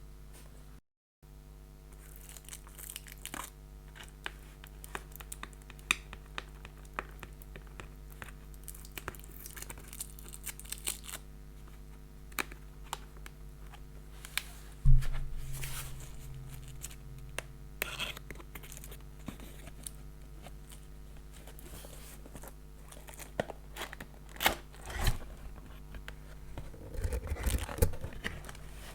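A keyboard's retail box being opened and its packaging handled: scattered rustles, clicks and knocks, with one loud thump about halfway through and busier handling near the end.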